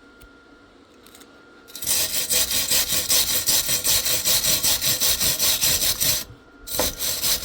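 Hand wire brush scrubbing a fresh MIG weld on steel, cleaning off spatter. Rapid back-and-forth scraping strokes start about two seconds in, stop briefly near the end, then pick up again.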